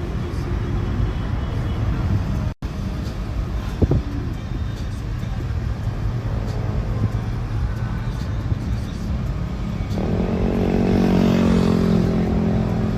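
Steady low rumble of vehicle traffic, cut off for an instant about two and a half seconds in. Near the end a louder engine note rises and swells.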